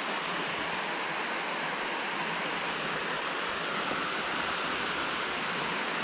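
Steady rush of shallow water flowing down a concrete spillway channel.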